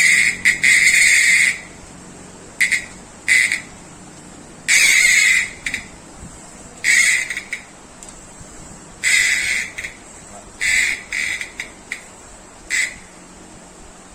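Abu Cardinal 4 spinning reel's ratchet buzzing in about nine short, loud bursts of rapid clicking, each under two seconds, with pauses between.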